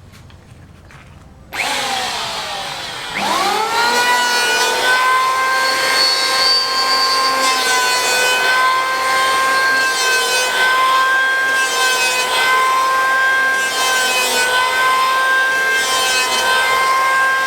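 An electric power tool starts up, its motor whine rising in pitch and settling about three seconds in, then runs steadily while cutting, with rasping surges every second or two.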